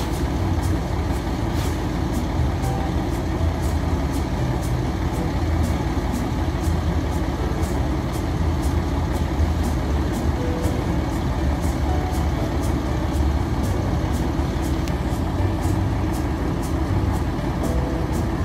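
Garbage truck's diesel engine running at a steady idle while the truck stands stopped for a bin pickup.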